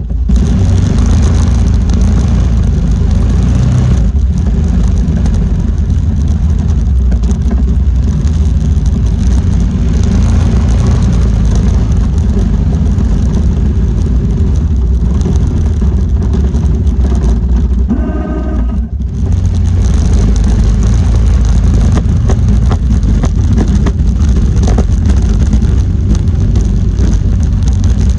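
Four-wheeler engine running steadily, with a heavy low rumble that dips briefly about two-thirds of the way through.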